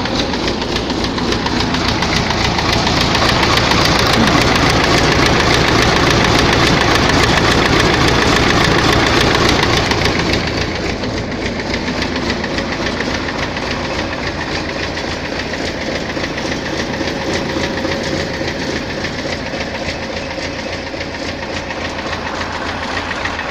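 Tractor diesel engine running with a knock, which the owner says is heard at idle and middle revs but not at high revs. It runs louder for the first ten seconds or so, then settles lower. The owner suspects the knock comes from heavy wear in the fourth cylinder.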